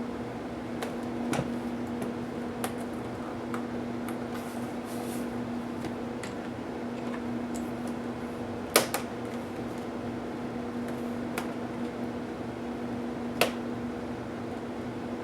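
Scattered clicks and knocks of tools and plastic laptop parts being handled during a teardown. The two sharpest come about nine seconds in and again about four seconds later, over a steady low hum.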